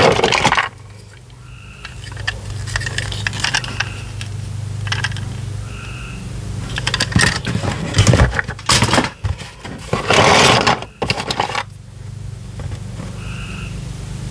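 Small plastic toys clattering and scraping against each other in a cardboard box as a hand rummages through them, with a few louder bursts of clatter.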